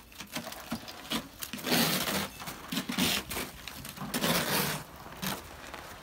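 Plastic ice scraper scraping snow and ice off a car windshield: a few rough scraping strokes with small knocks between them.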